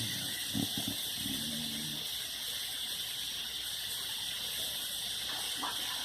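A pit bull snoring: a short snore about half a second in and a longer, drawn-out one that ends about two seconds in, over a steady hiss that is left alone for the rest.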